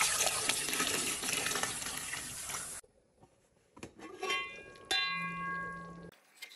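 Hot water poured in a stream into a large aluminium pot of haleem, splashing into the thick lentil-and-meat mixture, for nearly three seconds before cutting off suddenly. Then a few light clicks and a metal clink with a brief ringing tone as the aluminium pot lid is handled.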